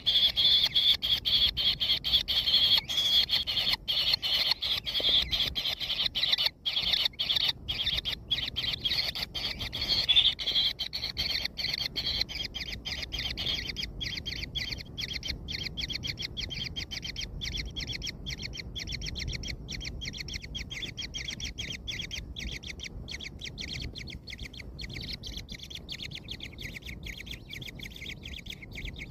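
Kingfisher nestlings calling: a fast, continuous stream of high chirps, louder for about the first ten seconds and then softer. These are begging calls from chicks in the nest at feeding time.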